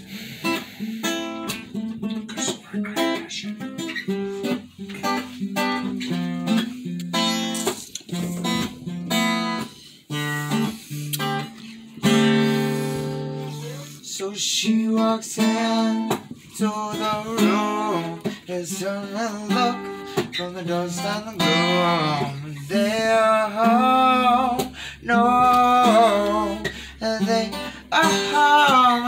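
Acoustic guitar played live, strummed and picked chords, with a voice singing along from about halfway through.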